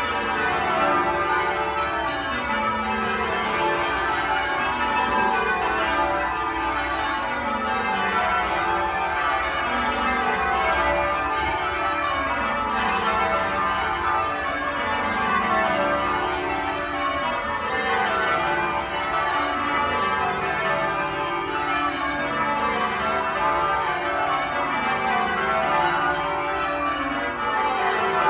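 Ring of twelve church bells being change-rung, struck one after another without a break. Each run of strikes steps down in pitch from the highest bell to the lowest, and the runs follow on continuously, a little over two seconds each.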